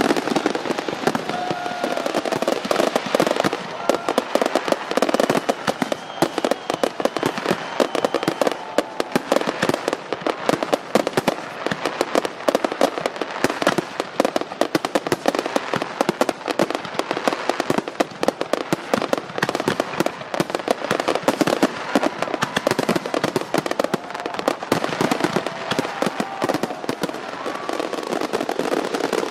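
Fireworks display: aerial shells bursting in a dense, unbroken run of crackles and bangs.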